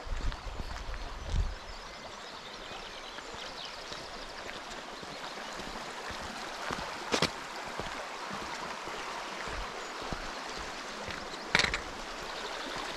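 Shallow stream running over stones, a steady rush of water, with a few low thumps in the first second or two and two sharp clicks, about halfway through and near the end.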